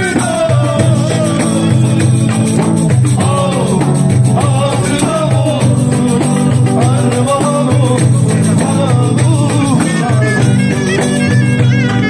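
Romani street band playing live: a wavering, ornamented melody over a steady, repeating bass beat, with light percussion.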